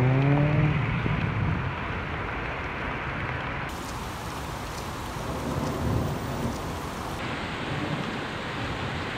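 Heavy rain and floodwater sheeting across a flooded road in a monsoon storm, a steady hiss with low rumble underneath. The sound changes abruptly twice, where the clips cut. A short pitched hum fades out in the first second.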